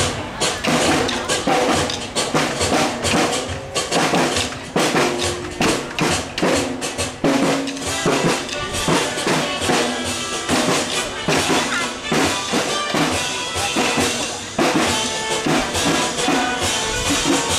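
Marching drum line playing drums with sticks: a steady, fast run of drum strikes with a tune carried over them.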